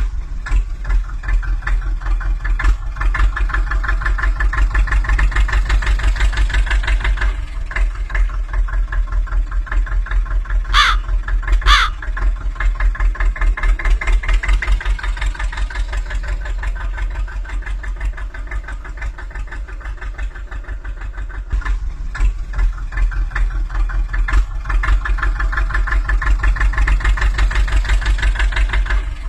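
Tractor engine idling with a steady, fast chugging pulse that swells and eases a little over time. Two short bird calls stand out about eleven seconds in.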